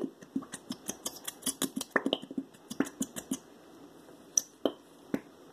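Small plastic glitter glue bottles being squeezed hard to force out the last of the thick glue, giving a rapid run of small clicks and pops for about three and a half seconds, then a few scattered ones.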